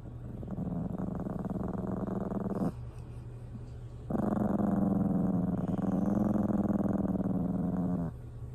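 Small pet dog growling, a low rough grumble in two long stretches: one of about two seconds, then after a short pause one of about four seconds.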